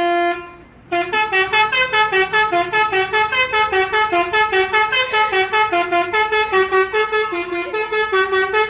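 A bus's 'telolet' musical horn, several pitched horns playing a tune. A held note cuts off just after the start. About a second in, a quick melody of short notes begins, several a second, and runs on without a break.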